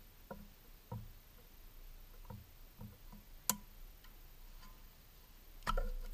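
Irregular light clicks and taps from a small tool prying at an ABS wheel speed sensor seated in a car's wheel hub. Near the end comes a louder cluster of knocks as a gloved hand grips the hub.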